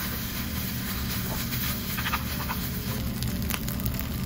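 Dolsot bibimbap sizzling and crackling in a hot stone bowl as a spoon mixes it, with a few light scrapes of the spoon. A steady low rumble runs underneath.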